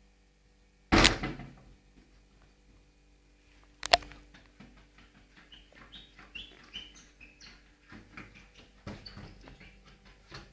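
Pet parrot chirping in short, quick high notes mixed with small clicks, after a loud sudden sound about a second in and a sharp click just before four seconds.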